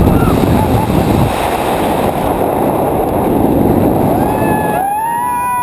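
Wind rushing and buffeting over the camera microphone on a flipping thrill ride. About four seconds in, as the rush dies down, a rider lets out a long, high scream that holds steady.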